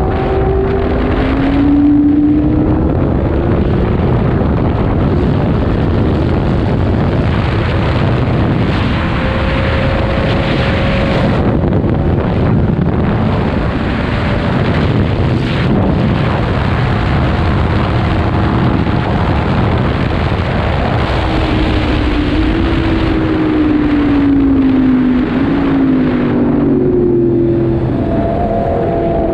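Yamaha MT-10's crossplane inline-four engine running at speed under heavy wind rush on the microphone. The engine note climbs in the first couple of seconds and is then mostly buried in the wind. It falls away as the bike slows about two-thirds of the way through, then climbs again near the end.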